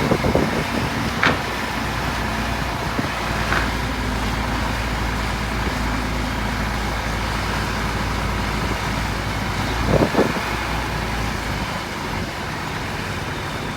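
Truck engine running steadily on a construction site, with wind rumbling on the microphone and a few short knocks.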